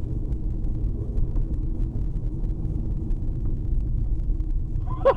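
Steady low rumble of a car driving on a snowy road, heard from inside the cabin through a dashcam. Near the end a rapidly repeating pitched sound starts, about three times a second.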